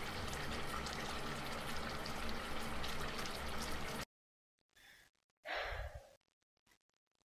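Hot oil sizzling and crackling around frying chicken, a steady hiss with fine pops that cuts off abruptly about four seconds in. A brief breathy sound follows near six seconds.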